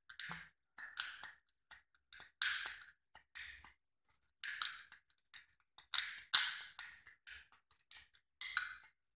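Copenhagen snuff can lid crackling in short, sharp, irregular clicks, about two a second, as it is pressed and worked around in the palm. The cracking is the sign of the lid's metal insert starting to break loose.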